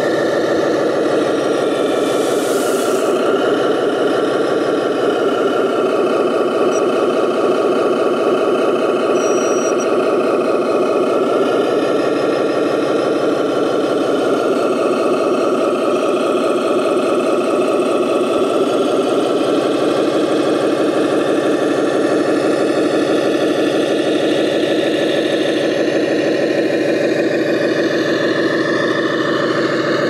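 Simulated truck diesel engine running from the sound module of a radio-controlled MAN 8x8 model tipper truck, steady with slight rises and falls in pitch.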